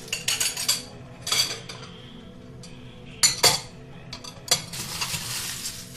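Cutlery clinking and scraping against dishes in a run of short clatters, with two sharp knocks about three and a half seconds in and a longer scrape near the end. Faint background music plays underneath.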